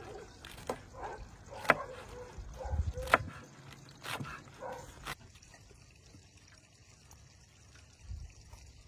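Cookware being handled in outdoor cooking: three sharp clicks of utensils among softer handling sounds during the first five seconds.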